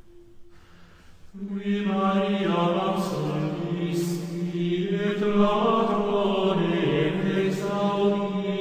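Slow chant sung by low male voices, with long held notes moving in small steps, starting about a second and a half in after a brief quiet gap.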